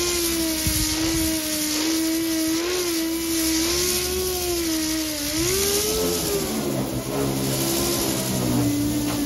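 Air-powered orbital sander (a 'mud hog') with 80-grit paper running against a steel trunk lid: a steady whine over hissing exhaust air, its pitch dipping and wavering as the pad is pressed and moved across the paint.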